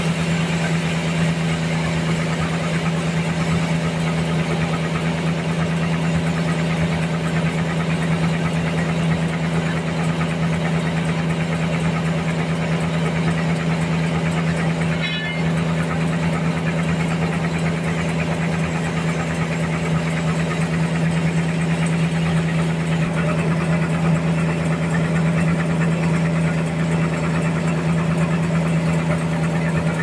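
Large band sawmill running and sawing a big trembesi (rain tree) log lengthwise into boards: a steady low machine hum under the hiss of the blade cutting, with a brief dip a little past halfway.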